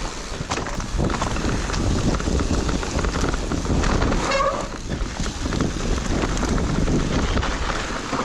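Intense Tazer electric mountain bike being ridden over snowy ground, heard through wind buffeting an action camera's microphone, with a steady low rumble and repeated clicks and rattles from the bike. A brief high tone comes about four seconds in.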